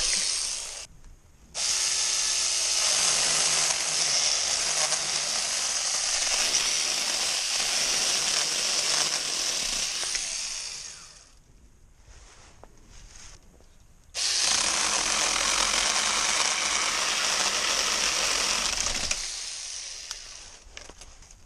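Hancaner cordless mini chainsaw running and cutting through wood in bursts: a brief start, a long cut of about nine seconds, a pause of about three seconds, then a second cut of about five seconds that trails off near the end.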